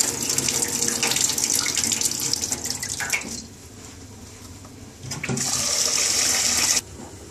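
Water from a sink tap running into a saucepan of red lentils as they are rinsed. The flow stops about three seconds in, runs again about two seconds later, and cuts off suddenly near the end.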